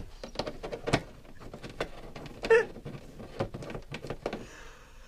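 A terrier nosing and mouthing at the plastic casing of a portable electronic keyboard: irregular light clicks and knocks, with one short pitched sound about halfway through.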